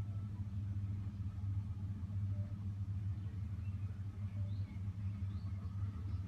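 Steady low rumble of a stationary vehicle's engine idling.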